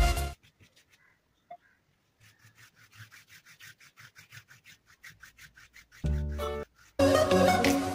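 Faint, fast back-and-forth rubbing on paper, several strokes a second, for a few seconds. Electronic dance music cuts off at the start, bursts in briefly about six seconds in, and comes back near the end.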